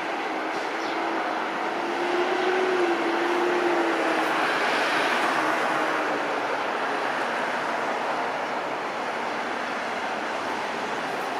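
Boeing 737-700's CFM56 jet engines running as the airliner passes, a steady rushing hum with a droning tone that swells and dips slightly in pitch about four seconds in.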